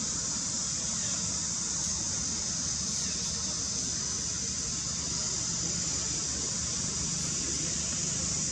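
A steady high-pitched hiss that holds at one level, with no breaks.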